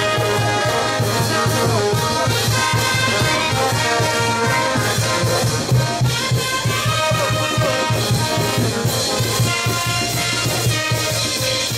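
Peruvian brass band playing a lively dance tune over a steady drumbeat, with trumpets and trombones carrying the melody.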